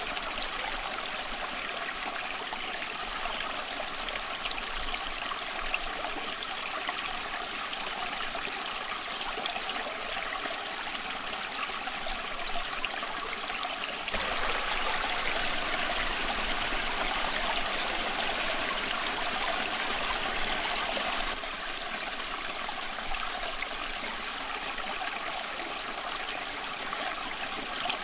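Stream water running and babbling over stones, steady and unbroken. About halfway through it turns louder for several seconds, then drops back abruptly.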